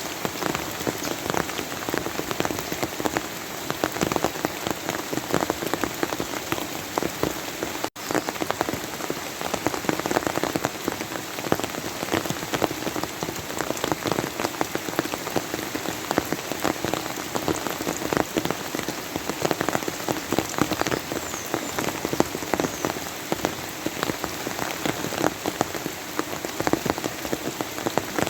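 Steady rain falling, a dense patter of many individual drops striking a surface. The sound cuts out for an instant about eight seconds in.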